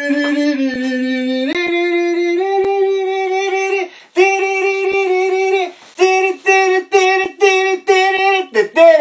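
A voice singing wordless notes, no words: long held tones for the first four seconds, stepping up in pitch about one and a half seconds in, then after a short break a run of short repeated notes, about two a second.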